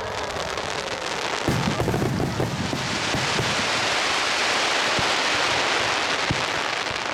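Fireworks going off: a dense crackling that grows louder over the first three seconds and then holds, with a few low booms scattered through it.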